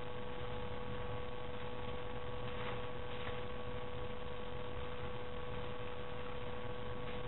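Steady electrical hum with a high thin tone and hiss, the recording's own background noise. Two faint brief sounds come near the middle.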